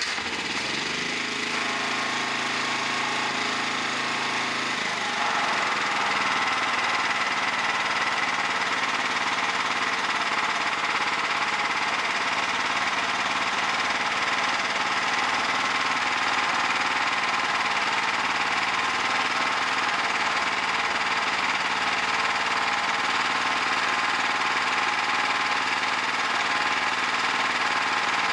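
Arc welding: the steady crackling hiss of a welding arc laying a bead on steel, starting abruptly and growing a little louder about five seconds in.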